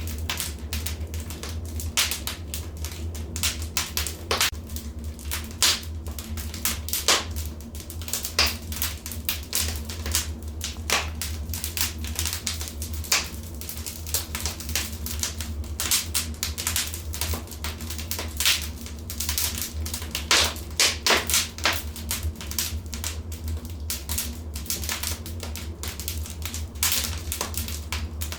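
Wood fire crackling in a fireplace: irregular sharp pops and snaps, some coming in quick clusters, over a steady low rumble.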